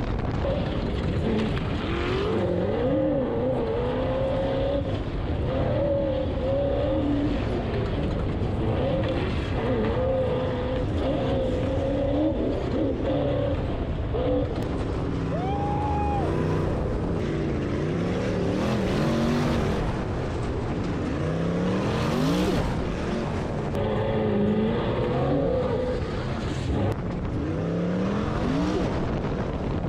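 Off-road sand car engine running under load as it drives through dunes, its revs rising and falling over and over, with quick climbs in pitch now and then.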